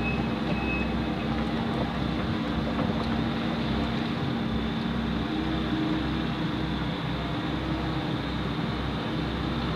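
Heavy diesel construction equipment running steadily, with a reversing beeper sounding twice in the first second before it stops.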